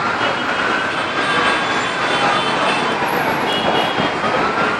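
Emergency vehicle siren wailing, its pitch rising and falling slowly, over loud steady street and traffic noise.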